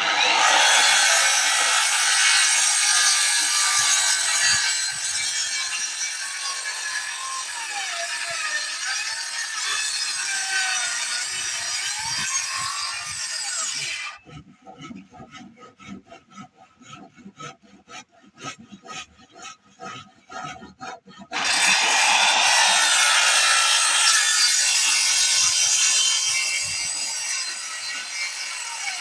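RYU electric circular saw cutting through wood, a long cut whose whine dips and wavers in pitch as the blade takes the load. About halfway through the cutting stops for some seven seconds, leaving only quieter rapid ticking, then a second cut starts.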